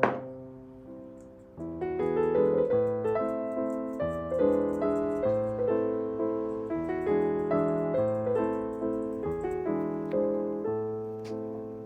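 Background piano music: a gentle melody of held notes over chords, with a sharp click at the very start.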